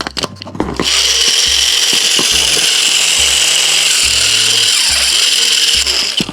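Small handheld power tool running steadily with a high whine and hiss for about five seconds, starting about a second in and cutting off near the end.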